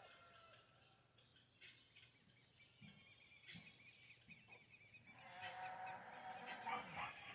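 Faint birdsong at a farm: small birds chirping and twittering. About five seconds in, a louder, held call from farmyard poultry joins them.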